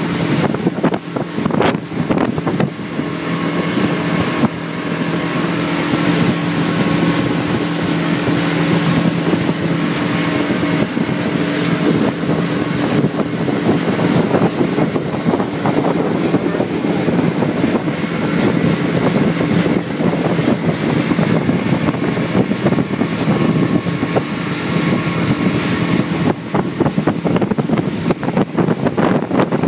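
Small motorboat under way: its engine's steady hum under loud wind rushing over the microphone, with the rush of water along the hull.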